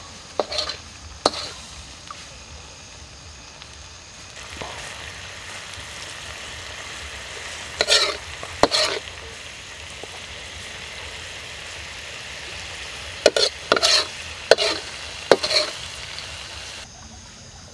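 Sauce sizzling in a hot wok over a wood fire, a steady sizzle that comes in about four seconds in and stops just before the end. A metal ladle scrapes against the wok in short strokes near the start, about eight seconds in, and several times near the end; these scrapes are the loudest sounds.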